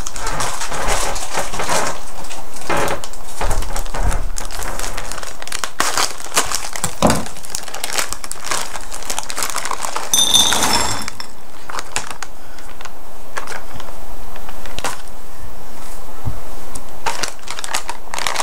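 Plastic bag of chocolate chips crinkling and rustling as it is handled. About ten seconds in comes a brief high beep, typical of a microwave's keypad being pressed to set the time.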